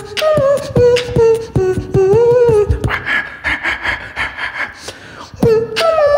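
Human beatboxing through a microphone: vocal kick drums and hi-hat clicks under a hummed melody line. From about three seconds in the beat drops out for a quieter, rapidly pulsing vocal effect, and the drum pattern comes back near the end.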